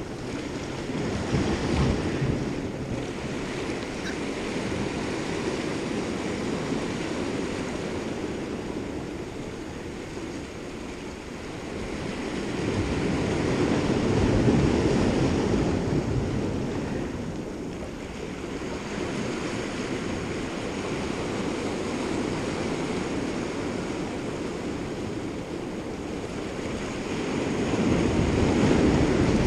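Ocean surf washing and breaking against the rocks below, with wind rumbling on the microphone. The wash swells louder about halfway through and again near the end.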